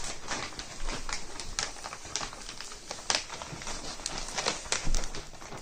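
Small plastic zip-lock slider pressed and run along the zip seal of a plastic vacuum storage bag, giving irregular clicks with crinkling of the bag's plastic.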